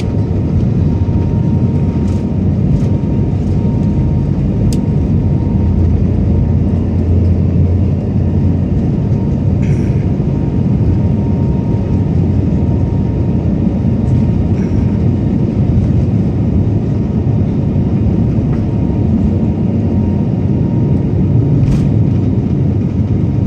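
Steady low rumble of a jet airliner heard from inside the cabin as it taxis: engine noise and wheel rumble, with a faint steady whine above it.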